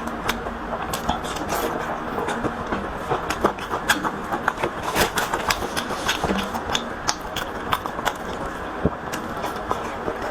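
Close-miked eating sounds: wet chewing and lip-smacking clicks at an irregular pace as a person eats braised pork meatballs, over a steady background rumble.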